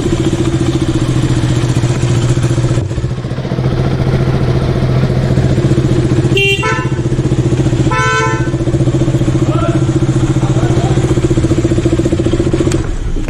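KTM RC's single-cylinder engine idling steadily with an even pulse. Two short horn beeps come about a second and a half apart near the middle.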